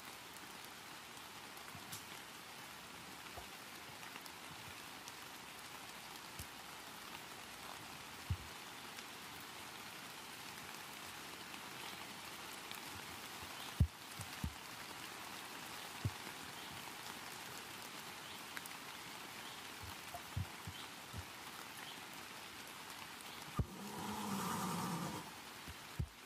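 Steady hiss of rain falling, with scattered faint clicks and knocks. Near the end a louder pitched sound lasts about a second and a half.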